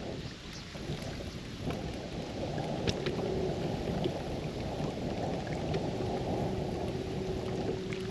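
Wind buffeting the camera microphone as a steady rumbling rush, with small sharp ticks and splashes scattered through it. A faint steady hum comes in briefly about three seconds in and again from about six seconds on.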